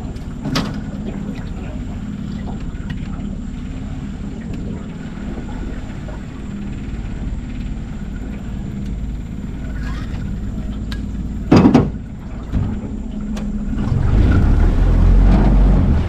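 Johnboat's outboard motor running steadily at low speed, a low drone under the moving boat. A single sharp knock sounds about two-thirds of the way through, and the low rumble grows louder for the last couple of seconds.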